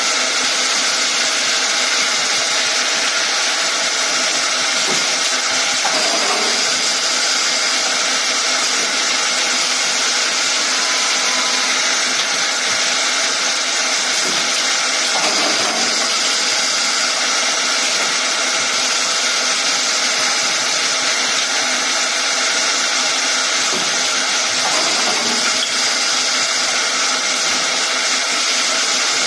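Automatic wood chamfering and tenoning machine running, its spindle motors and cutters making a loud, steady whine and hiss, with slight changes in the sound about every nine to ten seconds.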